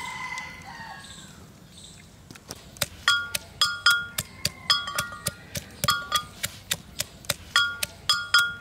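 Pestle pounding in a metal mortar, beginning about two and a half seconds in. The strikes come about three times a second, and each one clangs with a short ring.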